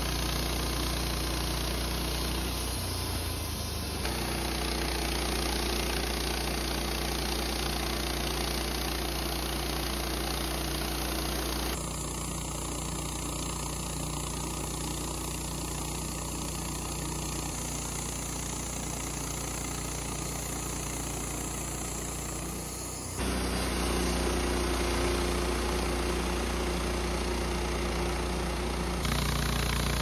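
Wood-Mizer LT15 portable band sawmill running steadily while its band blade cuts through a sugar pine cant. The sound shifts abruptly three times.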